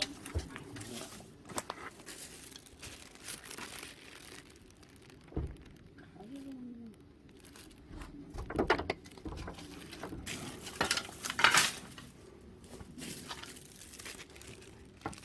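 Rustling, crinkling and scattered snaps and knocks from firewood and brush being handled and fed into a wood-fired agungi furnace, with louder clusters of snapping about halfway through and again about three-quarters of the way in.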